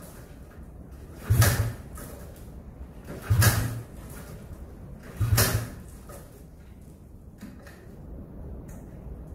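Recoil pull starter on a 1970 Arctic Cat Panther 303's rotary engine, yanked three times about two seconds apart. Each pull is a short rasp of rope as the engine turns over, and it does not catch. The owner takes this for a lack of spark; he has the choke on.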